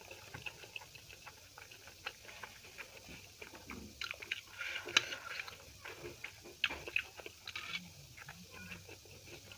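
Close-up mouth sounds of a person chewing food, with many small irregular clicks throughout and a few louder ones around the middle.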